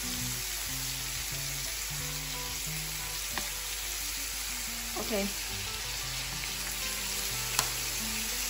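Pork and vegetables sizzling in a hot non-stick frying pan as they are stir-fried, a steady hiss with two sharp clicks.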